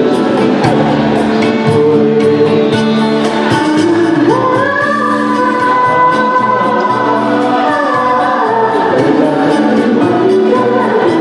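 A pop song with a sung vocal over a band, with a long held high note in the middle.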